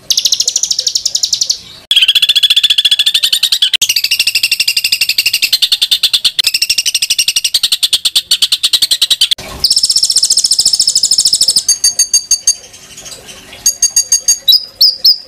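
Songbird song of harsh, very rapid trills, each run lasting a couple of seconds and shifting in pitch from one run to the next. Near the end it changes to short groups of separate sharp, high notes.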